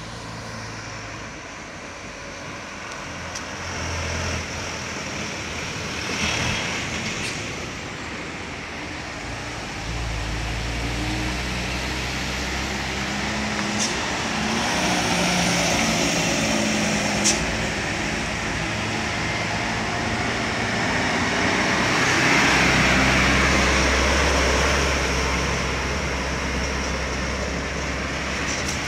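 Diesel light trucks driving round a hairpin bend one after another at full throttle, each engine's low drone swelling and fading as it passes, loudest about two-thirds of the way through. Two sharp ticks near the middle.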